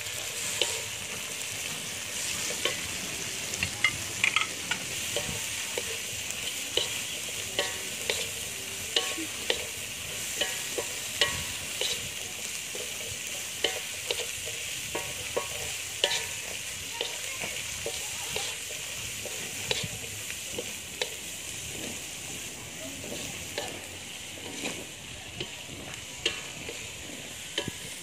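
Local spinach, onion and chilli sizzling in hot oil as they are stir-fried in a metal wok. A wooden spatula scrapes and knocks against the pan in irregular strokes.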